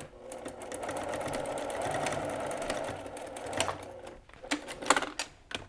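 Domestic sewing machine stitching steadily at a moderate speed for about four seconds, then stopping. A few scattered clicks and knocks follow as the machine and fabric are handled.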